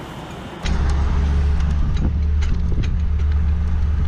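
Tractor engine running steadily with a loud low drone, cutting in abruptly about half a second in.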